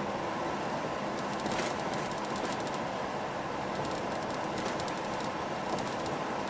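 Steady engine and road noise inside a long-haul truck's cab while driving on the highway, with faint light rattles over the drone.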